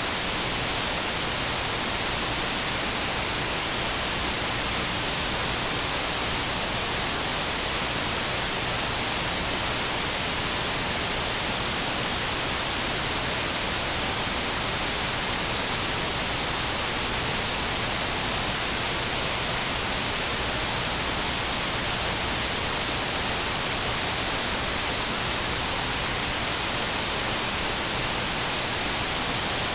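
Steady hiss of electronic static, even and unchanging, strongest in the high end, with no speech or music.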